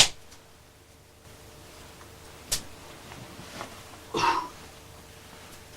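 A single short cough about four seconds in, in a small room, with a sharp click at the start and another about two and a half seconds in.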